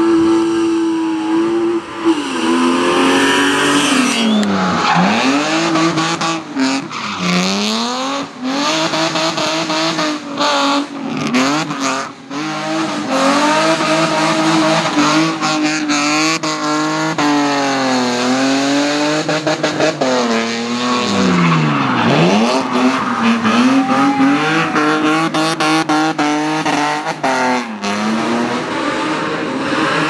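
BMW E30 and E36 hill-climb race cars sliding through hairpins with tyres squealing. Their engines rev hard, the pitch falling and climbing again many times as the drivers lift off, change gear and get back on the throttle.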